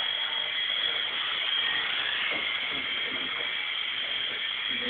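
Picoo Z Sea King mini RC helicopter's small electric motors and rotors running with a steady high-pitched whine.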